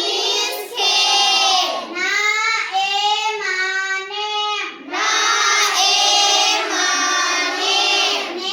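A child singing in long, held notes with short pauses between phrases.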